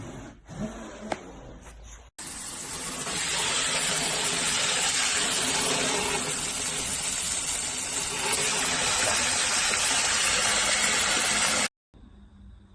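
A couple of faint clicks, then a loud, steady rushing hiss that cuts in abruptly about two seconds in and stops abruptly near the end.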